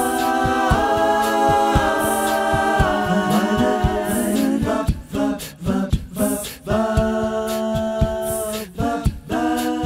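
Background music: an a cappella vocal group singing held chords in close harmony over a light clicking beat, breaking into short, choppy notes in the middle before the held chords return.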